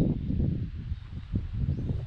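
Wind buffeting the microphone outdoors: an uneven low rumble that swells and dips.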